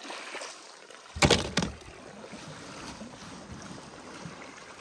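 Steady outdoor wash of water and wind on a pebble shore. Two short, loud noises come about a second and a half in.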